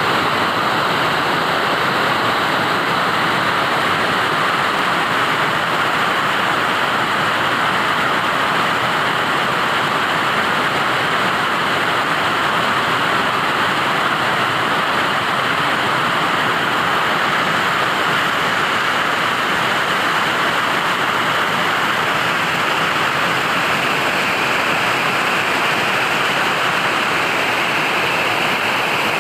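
Running water rushing steadily and evenly, a continuous splashing hiss.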